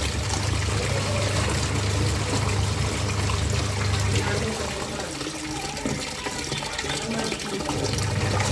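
Polytron PWM9556 washing machine running with water in the tub: a steady motor hum over water sloshing and churning. The hum stops for about two seconds after five and a half seconds, then starts again.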